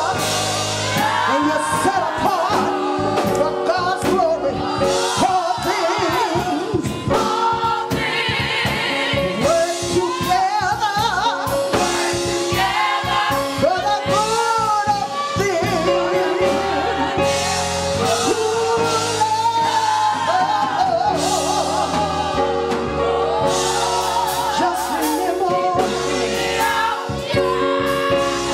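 Gospel choir singing with keyboard accompaniment, led by a woman singing into a microphone.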